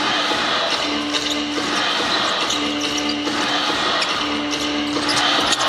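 A basketball being dribbled on a hardwood court over steady arena background noise. A low steady tone sounds three times, under a second each, about every second and a half.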